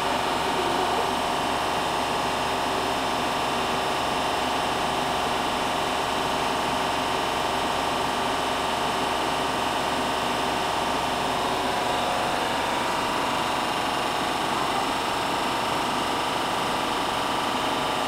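Laboratory shaking incubator running: a steady mechanical hum with several steady tones over a dense whir of fans and motor.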